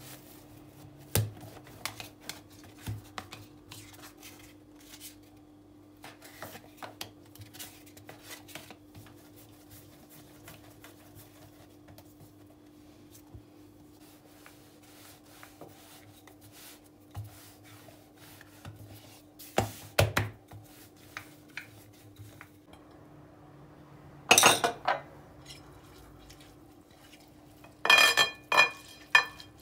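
Hard objects knocking and clinking now and then, with louder ringing clatters about 24 seconds in and again near the end, over a steady low hum.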